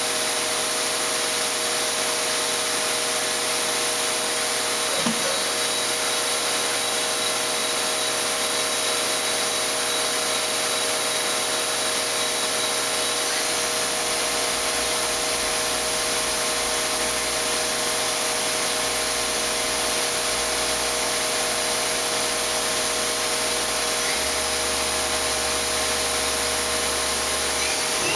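Hitachi Seiki HG400 III CNC horizontal machining center running under power: a steady hiss with several steady hum tones, one short click about five seconds in, and a low hum that grows stronger near the end.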